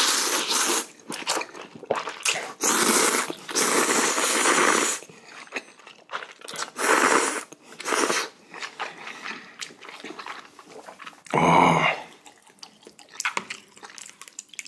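Noodles of spicy jjamppong being slurped and chewed: a few long slurps of a second or two each, with wet chewing and smaller mouth sounds between them. A short throaty sound comes about eleven seconds in.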